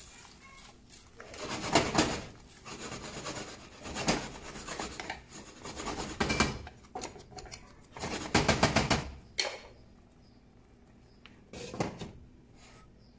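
A kitchen utensil scraping and rubbing against cookware in about five short bursts, the longest and loudest about two-thirds of the way through.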